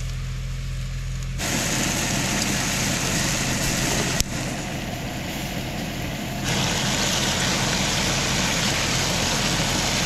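Meat and vegetables sizzling in a pan over a camp stove: a steady hiss that jumps in level abruptly a few times, with a sharp click around four seconds in.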